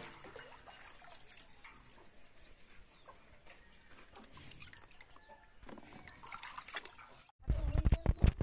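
Leafy greens being swished in a metal basin of water and lifted out, giving faint splashes and drips. Near the end, after a sudden break, a much louder run of low knocks and rumbling takes over.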